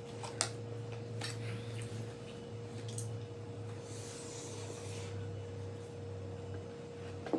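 Chewing of crunchy food close to the microphone: scattered crunches and rustles over a steady low hum.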